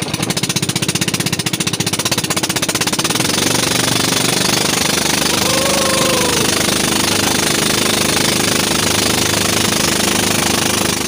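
Small boat engine running just after being started, with rapid, evenly spaced strokes. The strokes are plainly separate at first, then speed up and run together, getting a little louder after about three seconds as the boat gets under way.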